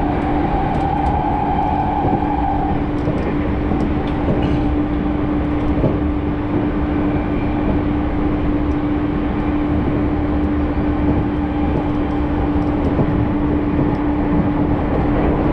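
Cabin noise of a commuter electric train under way: a steady rumble of wheels on rails with a constant low hum. A higher whine fades out about two and a half seconds in.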